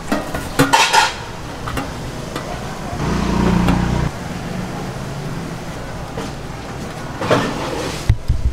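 Stainless steel colander and pan clinking and scraping as crumbly food is handled and moved between them. There are sharp clinks at the start, near the end and again just before it ends, and a low hum swells for about a second in the middle.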